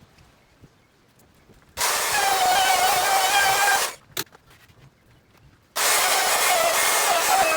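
Handheld electric power tool run in two bursts, each starting and stopping abruptly. A motor whine wavers in pitch over a loud rush of noise.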